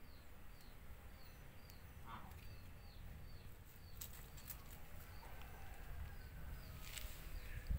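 Faint garden ambience: a small bird repeats a short, high, falling note about twice a second, fading out after about five seconds, over a steady low rumble. A few light clicks come about four seconds in and again near the end.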